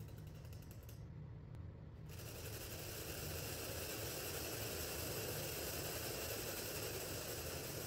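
Split-flap display's flaps clattering in a dense, rapid flutter of many tiny clicks, as a whole board of flaps flips through characters at once. It starts about two seconds in, after a brief lull with only a few stray clicks.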